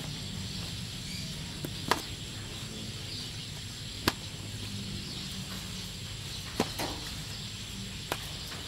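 Four short, sharp clicks a couple of seconds apart, over a steady low hum.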